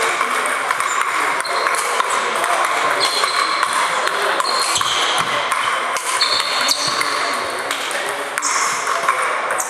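Table tennis ball clicking on sandpaper bats and bouncing on the table in a rally, with a string of sharp, irregular clicks and short high pings over hall noise.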